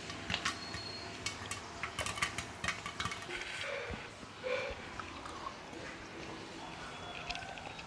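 Pan of popcorn being made: scattered sharp clicks and clinks of kernels and utensil against the pan, thick in the first three seconds, then sparse.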